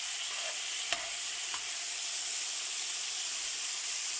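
Butter melting and sizzling in a hot frying pan: a steady high hiss with a couple of faint pops in the first two seconds.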